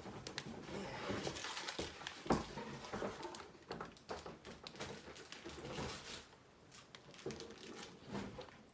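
Plastic LEGO parts bags crinkling as they are handled and set down, with scattered light clicks and rustles.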